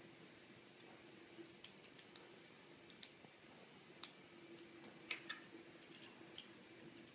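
Small, irregular clicks of 3D-printed plastic snap tiles being pressed and snapped together by hand, the loudest a pair about five seconds in. A faint steady hum runs underneath.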